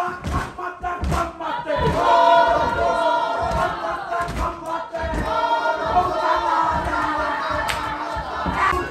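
A group of men and children chanting a haka in loud shouted unison, the chant filling out about two seconds in, with irregular thumps from hands slapping bodies and feet stamping.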